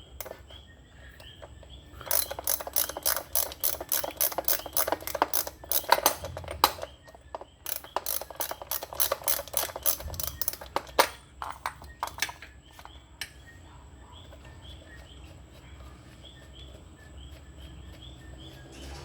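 Socket ratchet clicking rapidly in two long runs as a PCV valve is unscrewed, then a few scattered clicks and a quieter stretch near the end.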